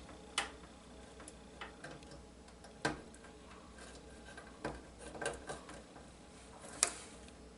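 Small, sharp plastic clicks and taps, a handful spaced irregularly, from front-panel header connectors and their leads being handled and pushed onto motherboard pins.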